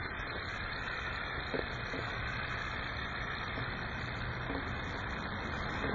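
Small solar-heated Stirling engine with a glass hot-end chamber running on its own as it is left to run down: a steady whirr with a few faint ticks.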